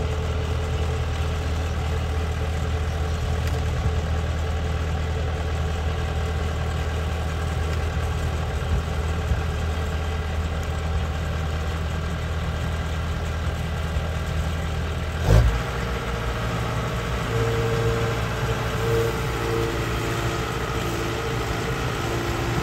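Combine harvester's diesel engine running steadily, with one loud clunk about fifteen seconds in, after which the engine note changes.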